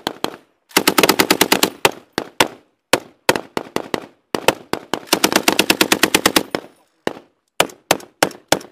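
Belt-fed machine gun firing in bursts of rapid shots: a long burst of about a second and a half, a few short bursts, a second long burst of about two seconds, then several separate shots near the end.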